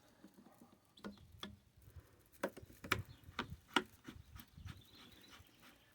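Scattered light clicks and taps of plastic pool-pump fittings being handled and threaded on by hand, at an uneven pace.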